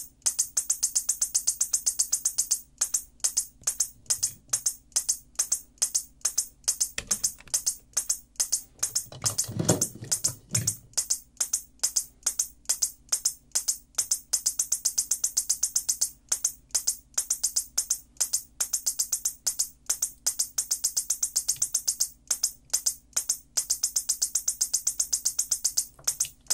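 Whelen Edge Strobe II strobe power supply firing at its rapid flash rate: a fast, regular train of clicks with a high-pitched pulsing whine, a sign that the added rapid-rate feature works. A brief low rumble comes about ten seconds in.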